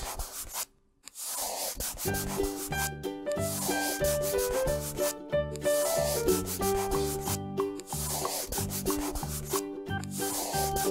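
Cheerful background music with a steady beat and a simple melody, over a continuous scratchy marker-on-paper scribbling sound as a coloring area is filled in. The music drops out briefly about a second in, then resumes.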